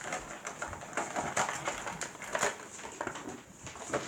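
Toy packaging being handled: irregular crinkling and light clicks of a plastic tray and cardboard as an action figure's accessories are worked loose.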